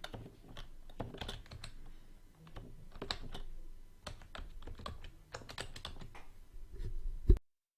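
Computer keyboard being typed on: irregular clicking keystrokes, ending in a louder knock just before the sound cuts off.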